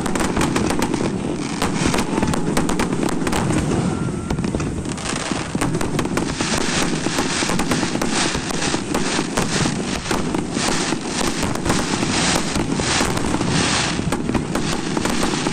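Fireworks display going off in rapid succession: a dense run of bangs and crackles, thickest in the second half, over a steady low rumble.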